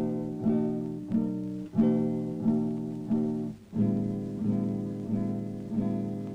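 Film score music: guitar chords struck in a steady rhythm, about three every two seconds, each ringing and fading before the next, with a brief gap about halfway through.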